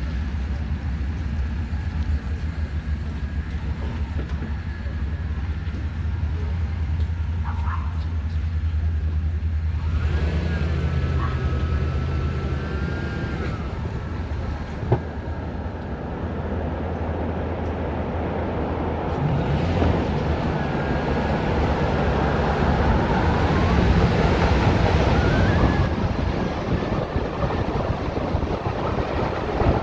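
Car on the move: a steady engine and road rumble with tyre noise, joined at times by a faint wavering whine.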